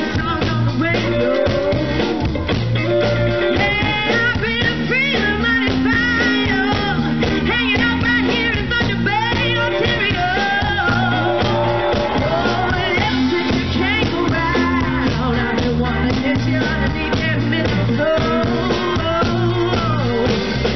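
Live blues-rock band playing a Christmas blues song: electric guitar with bending notes over a steady bass line and drums.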